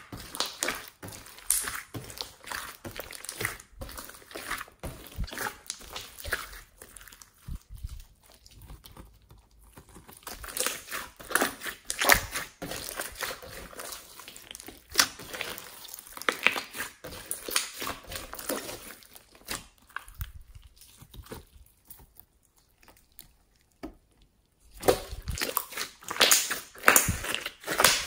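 Hands squeezing and folding a large glossy slime mixed with foam beads: irregular wet clicks, pops and crackles as the slime is pressed and pulled, with a quieter pause about three-quarters of the way through.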